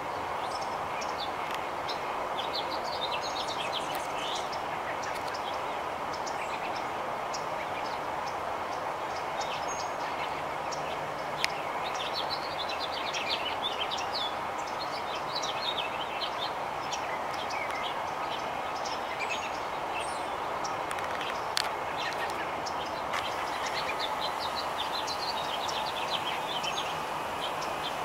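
Small songbirds chirping and twittering on and off over a steady outdoor background hum, with two brief clicks, about eleven and about twenty-one seconds in.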